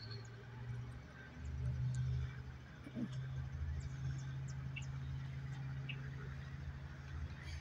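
Diesel freight locomotives approaching, heard as a steady low engine drone that swells slightly about a second and a half in.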